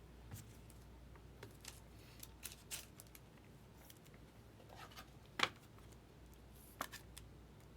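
Faint handling of trading cards: light scattered clicks and rustles as cards are slid and flipped, with one sharper click about five and a half seconds in.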